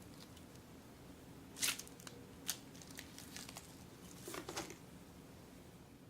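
Squishy mesh ball filled with Orbeez and slime being squeezed, giving a few short wet squelching crackles: one about one and a half seconds in, one near the middle and a cluster near the end.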